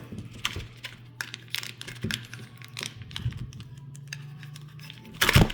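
Irregular light clicks and taps of a small metal card tin and its foil booster packs being handled as the tightly stuffed packs are worked out, with one louder thump near the end.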